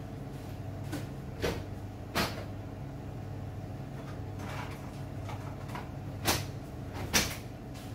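Sharp knocks and clunks of things being handled, four in all, two near the end the loudest, over a steady low hum.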